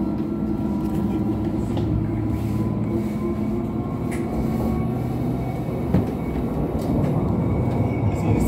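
Alstom Citadis X05 light rail vehicle running, heard from inside the passenger cabin: a steady low rumble and hum with a few faint steady tones above it, and a single short knock about six seconds in.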